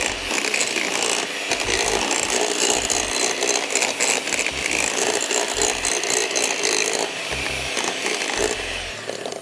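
Electric hand mixer running steadily, its twin wire beaters whisking melted chocolate into a beaten egg-and-sugar batter in a glass bowl. The mixer stops near the end.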